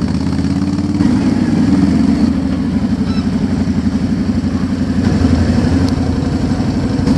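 ATV engine running steadily with a fast, even throb.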